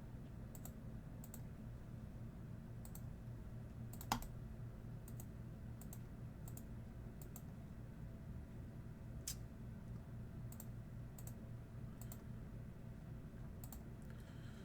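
Faint, irregular computer clicks and keystrokes, roughly one every half second to a second, with a sharper click about four seconds in and another about nine seconds in, over a low steady hum.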